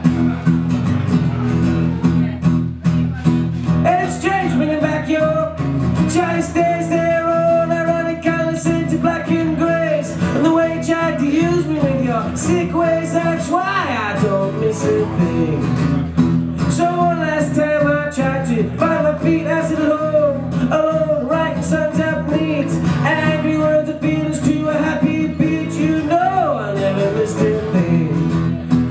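Live solo performance: a man singing while strumming an acoustic guitar. The guitar plays throughout and the sung melody comes in about four seconds in.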